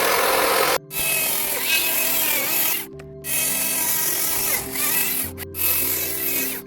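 Chainsaw cutting into wood, over background music; the saw noise cuts off abruptly a few times and comes straight back.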